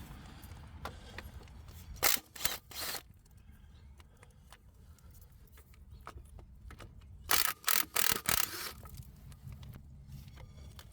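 Short sharp metallic clicks and clanks from a 14 mm socket working the bolts of the engine's underbody guard plate. They come in two clusters, a few about two seconds in and more about seven seconds in, over a low steady hum.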